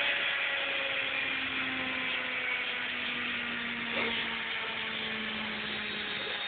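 Hotpoint WD62 washing machine motor running with a steady whine over a rushing hiss, the whine slowly falling in pitch as the motor slows. A faint tick about four seconds in.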